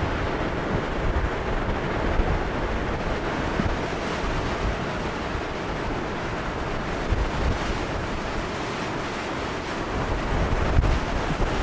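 Strong wind rushing steadily and buffeting the microphone in gusts, with the low rumbling buffets hardest near the end.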